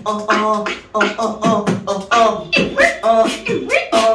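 Beatboxing: a rhythmic run of sharp mouth-percussion hits mixed with pitched, sliding vocal tones, the pattern getting busier about halfway through.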